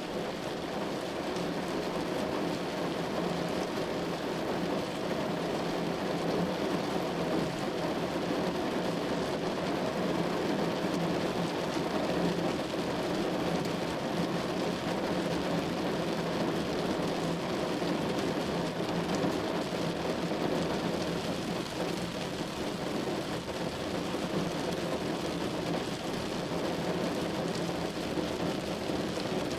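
Steady, unbroken rain-like noise, even throughout, with no speech or music.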